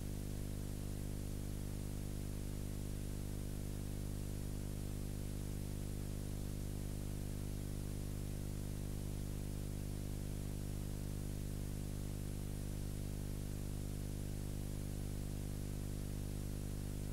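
Steady hiss with a low electrical hum, and no other sound.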